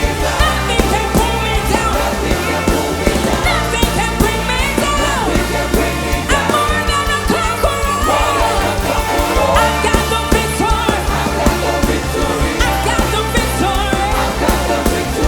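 Loud music with singing over a steady bass and beat.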